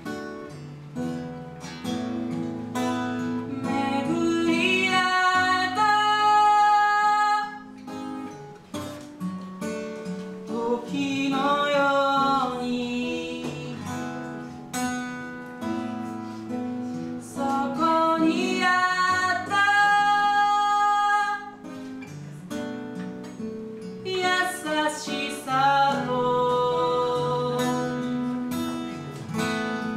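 Steel-string acoustic guitar strummed and picked, with a man singing several phrases over it, some ending on long held notes.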